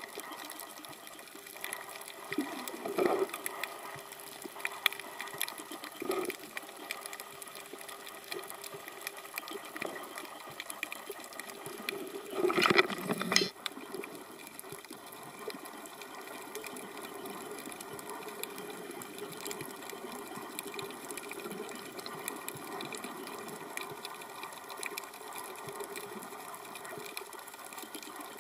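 Underwater sound picked up through a dive camera's housing: a steady hiss with a few short rushes of a scuba diver's exhaled bubbles, the longest and loudest lasting about a second near the middle.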